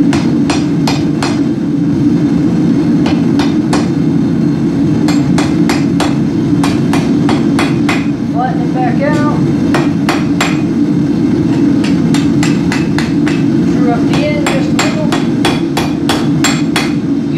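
Hand hammer striking an orange-hot mild steel bar on an anvil, in quick runs of ringing blows with short pauses between them. Under the blows runs the steady roar of a propane forge burner.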